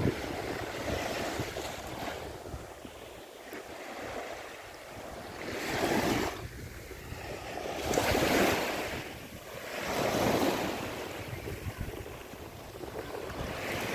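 Small waves washing in onto a sandy shore, rising and falling about every two seconds, with wind rumbling on the microphone underneath.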